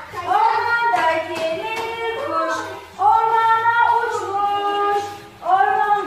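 A woman and a group of young children singing a Turkish children's song together, in phrases of long held notes.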